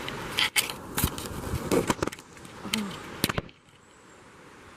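Several sharp knocks and crackles over a steady rushing hiss, likely handling noise or footsteps on the trail. The hiss drops away suddenly about three and a half seconds in.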